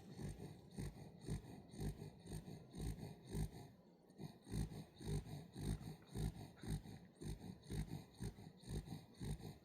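Welsh corgi snoring in its sleep: short, even snoring breaths, about two a second.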